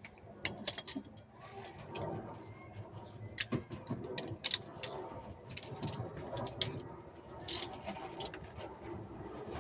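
Irregular clicks and knocks of hand tools and metal parts, about a dozen scattered sharp ones, during work on a Toyota Avanza's rear shock absorber.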